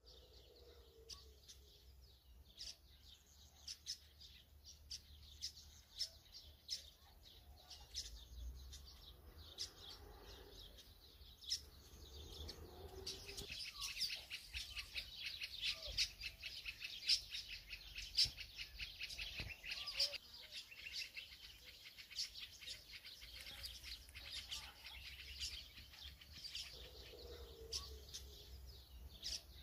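Small birds chirping, many short high chirps, thickest through the middle stretch, over a faint low hum.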